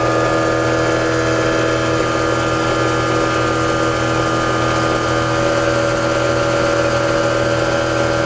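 Electric generator rig running steadily: a loud, even machine hum with several steady whining tones, a few of which shift in pitch about two seconds in.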